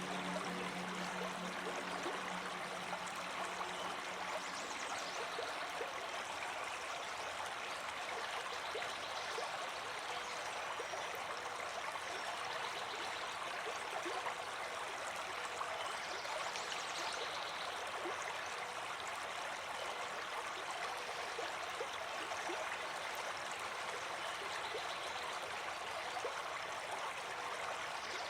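A small stream flowing steadily, with an even babble and trickle of water.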